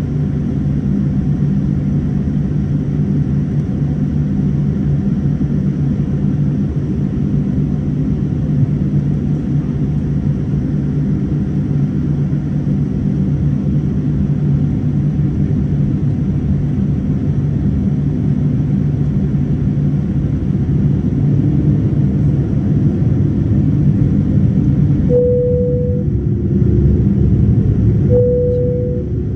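Boeing 787-9 passenger cabin during taxi: a steady low rumble of the engines and the rolling aircraft, with a constant low hum. It swells slightly late on, and two short steady tones sound a few seconds apart near the end.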